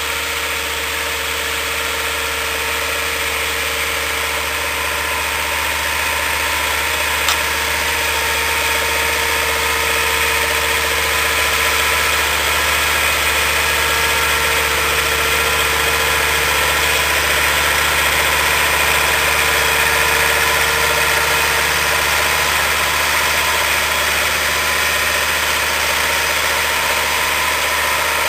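SAME Laser 100 tractor's diesel engine running steadily under load while pulling a Mascoli disc harrow through tilled soil, gradually growing louder over the first dozen seconds. One brief click about seven seconds in.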